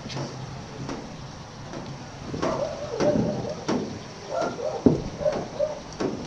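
Phone microphone rubbing and bumping against a shih tzu's fur, with scattered knocks and clicks and several brief squeaky sounds in the second half.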